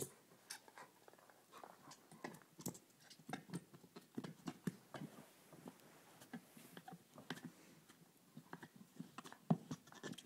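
Dog chewing and biting a plush squeaky squirrel toy: faint, irregular short squeaks and soft clicks as the toy is mouthed.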